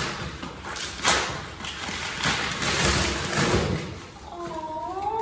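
Rustling handling noise with a few light knocks, and a short squeaky sound that glides up in pitch near the end.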